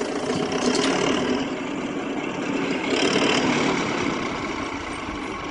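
An engine running steadily, fairly loud, as from a working farm machine.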